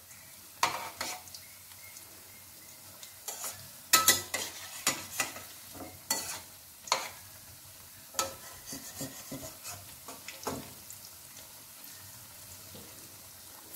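Ripe-jackfruit pakoras deep-frying in oil in a stainless-steel kadhai, a steady sizzle, while a steel spatula stirs them and knocks and scrapes against the pan in a string of sharp clinks. The clinks die away near the end, leaving the sizzle alone.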